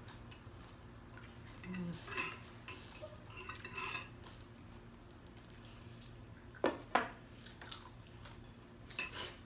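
Chopsticks and spoons knocking and clinking against ceramic soup bowls while two people eat noodle soup, scattered and light, with two sharp clinks in quick succession about two thirds of the way through.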